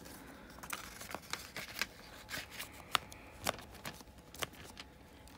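A plastic DVD keep case and its paper insert being handled: irregular clicks, taps and light rustling, with the sharpest click about three seconds in.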